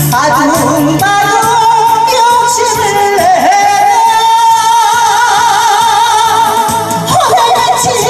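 A woman singing a Korean trot song live into a microphone over a backing track, amplified through a PA speaker. About halfway through she holds one long note with wide vibrato, over a steady beat.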